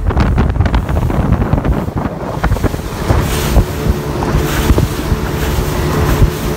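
Wind buffeting the microphone on a center-console fishing boat running over open sea, with water rushing past the hull and the low drone of the boat's engine. The buffeting is rough for the first few seconds, then settles, and a steady engine tone comes through more clearly from about three seconds in.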